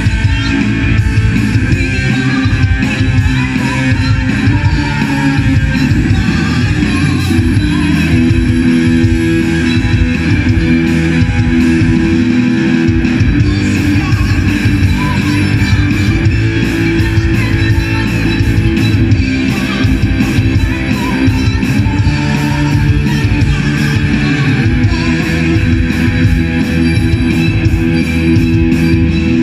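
Live rock band playing loudly: electric guitars over bass and a drum kit.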